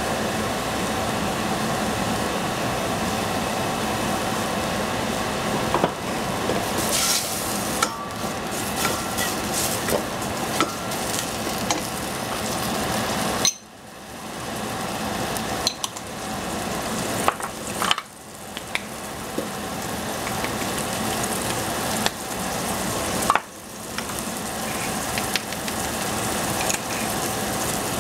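Diced vegetables sizzling as they fry in a pan, with a utensil stirring them and clicking against the pan now and then. The sizzle drops away abruptly three times in the second half, each time building back up.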